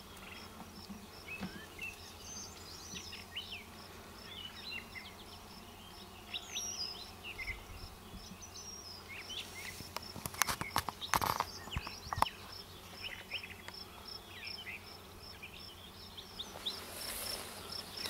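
Honeybees buzzing around an open hive, with birds chirping and an insect chirping in a steady pulse about three or four times a second. About ten to twelve seconds in come a few sharp knocks and scrapes as a wooden hive frame is pried loose and lifted out.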